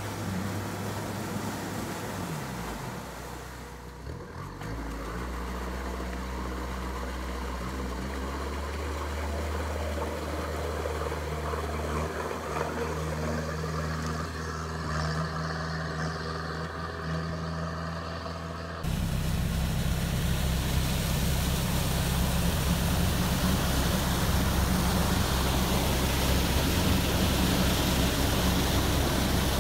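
Sherp amphibious all-terrain vehicle's diesel engine running steadily under load through swamp water and reeds. About two-thirds of the way through it turns abruptly louder and fuller, heard from inside a Sherp's cab.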